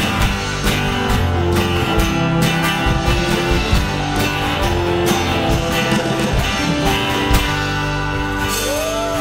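Live band of electric guitars, bass, keyboards and drums playing. The drum strokes stop about seven seconds in and a final chord is held.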